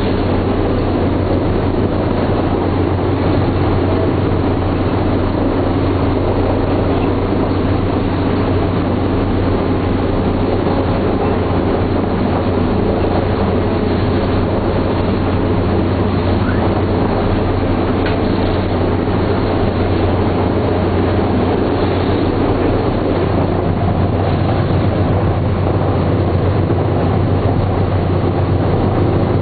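B-17 Flying Fortress's Wright R-1820 Cyclone nine-cylinder radial engines running with a loud, steady drone, heard from inside the fuselage.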